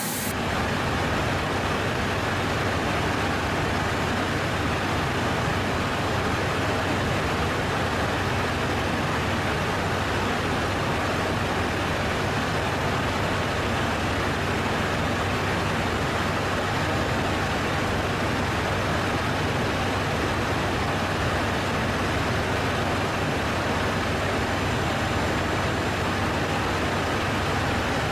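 Steady jet airliner cabin drone at cruise: an even rushing noise with a low hum underneath.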